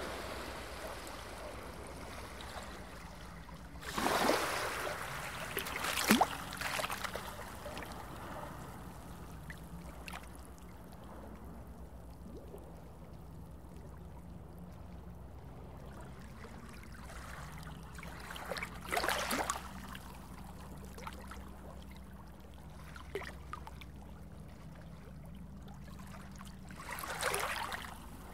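Underwater ambience sound effect: a steady low drone under gurgling, trickling water, with a few short, louder water swishes now and then.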